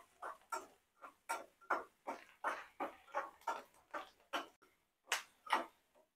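Metal slotted spoon scraping and knocking against a metal frying pan as sliced onions frying in oil are stirred, in short strokes about two or three a second, with a brief pause and two louder strokes near the end.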